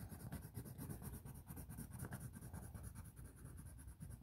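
Light brown colored pencil shading paper in quick back-and-forth strokes, a faint, steady scratching.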